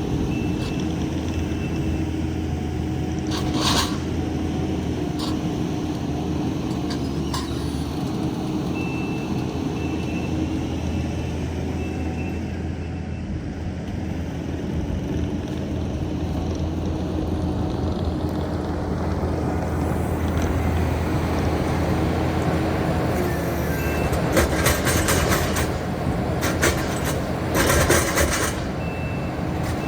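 Diesel heavy equipment engine running steadily, with a reversing alarm beeping on and off and a run of metal clanks and rattles near the end.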